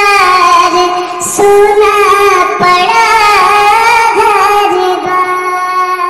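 A high-pitched voice singing a melody over musical backing, with the last note held steadily from about five seconds in.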